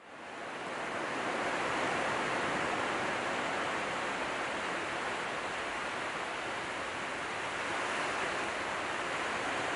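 Sea surf washing onto a sandy beach: a steady rushing of small breaking waves that fades in over the first second.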